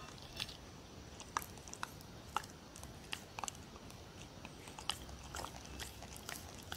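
A dog licking and nibbling at the end of a whole cucumber held out by hand: a scattering of small, sharp, irregular clicks and crunches of teeth and tongue on the cucumber. The cucumber is too hard for the dog to bite through.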